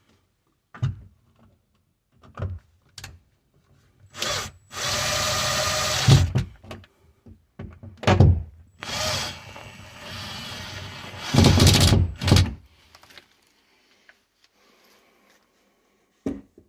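Power drill-driver running in three short runs of a second or so each, with sharp knocks and thunks of tools and hardware being handled in between, as screws are driven during an outlet box install.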